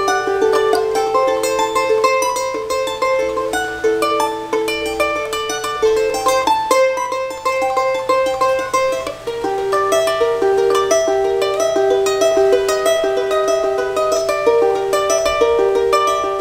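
Charango playing an instrumental tune: a melody of plucked notes carried over rapid strummed strokes.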